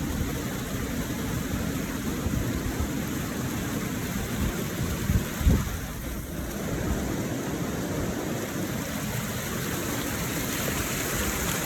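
Steady rush of water falling from a partly frozen waterfall, with uneven low rumbling beneath it. A brief thump comes about five and a half seconds in.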